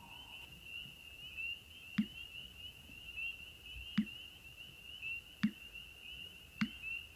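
Black bittern calling with short, sharp, low notes, four of them spaced one to two seconds apart, over a steady high-pitched trill.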